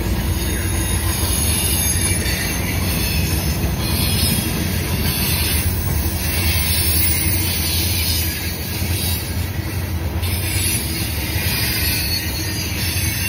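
CSX freight train's open hopper cars rolling past at close range: a steady heavy rumble of steel wheels on rail with high metallic wheel squeal and the odd click of wheels over rail joints.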